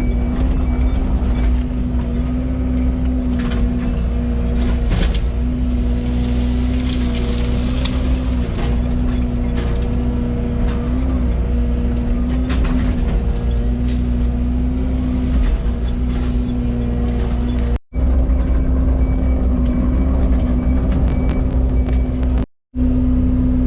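Yanmar VIO80 excavator's diesel engine running steadily with a held whine over its low rumble, scattered with short clicks and knocks. The sound cuts out briefly twice near the end.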